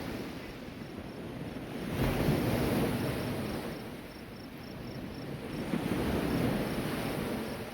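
Ocean waves breaking and washing up the shore, the surf swelling and ebbing twice in slow surges about four seconds apart.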